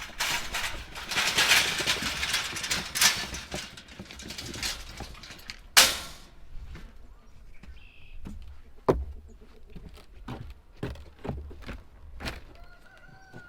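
Rustling and handling noise, then scattered sharp knocks and clicks, the loudest about six seconds in.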